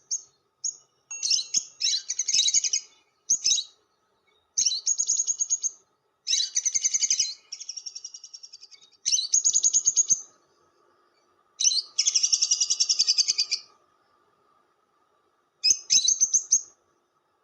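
Lovebird chattering in rapid, high-pitched trilled bouts of one to two seconds, separated by short pauses: the long 'ngekek' chatter that lovebird keepers use as a lure call.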